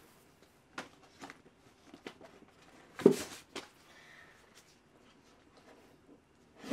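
Cardboard vinyl record sleeves in a wooden crate being flipped through: soft scattered knocks and rustles, with a louder knock and scrape about three seconds in as one album is pulled out.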